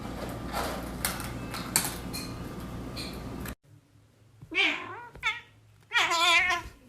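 A domestic cat meowing three times: two short meows, then a longer one with a wavering pitch. Before the meows there is a steady background hum with a few clicks, which cuts off suddenly.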